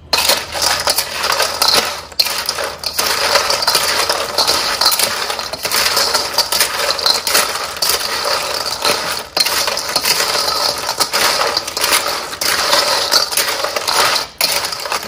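Many small clam shells clattering and clinking against one another in a dense, continuous rattle that starts and stops abruptly.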